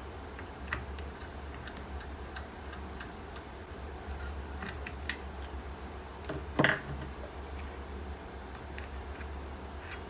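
Scattered light clicks and taps of a screwdriver, small screws and plastic parts being handled while taking apart a handheld multimeter, with one louder clack about six and a half seconds in. A steady low hum runs underneath.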